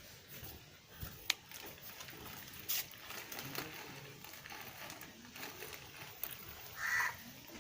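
A crow cawing once near the end, over faint scattered sounds with a sharp click about a second in.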